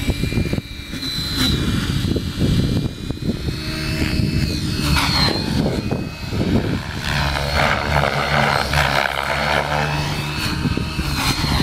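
Electric 700-size RC helicopter (Beam E6 with an Align 700MX motor) in flight: a high motor and rotor whine that dips and rises in pitch twice as it manoeuvres, with heavy wind rumbling on the microphone.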